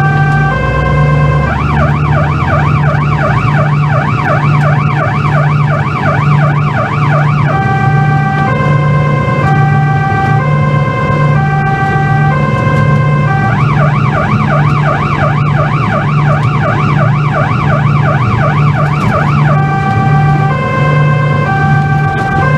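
Police van's electronic siren heard from inside the van. A stepped pattern that changes tone a little under once a second switches to a fast warbling yelp of about four sweeps a second at about a second and a half in. It goes back to the stepped pattern after about six seconds, yelps again for about six seconds from around thirteen seconds in, then returns to the stepped pattern. A steady low hum sits underneath.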